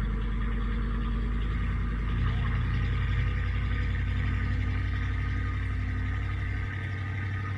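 Truck engine running steadily, with a deep rumble that drops away near the end.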